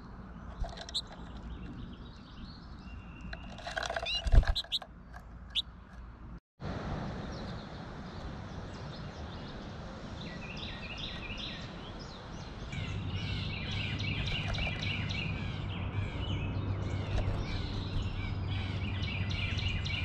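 American goldfinches chirping and twittering in quick runs of notes, with a few sharp taps in the first few seconds, the loudest about four seconds in. A steady low hum runs under the twittering in the second half.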